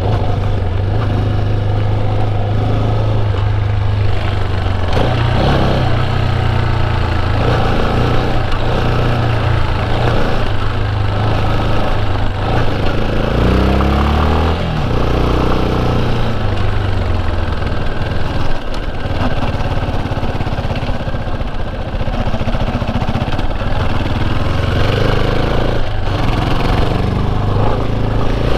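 Motorcycle engine running steadily while riding. About halfway through, the engine note drops and then climbs again, as when the rider shifts or slows and pulls away.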